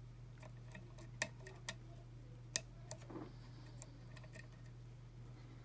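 Small, irregular clicks and ticks of a lock pick and tension wrench working the security pins of a pin-tumbler challenge lock held in a false set, with the loudest clicks about a second in and near the middle.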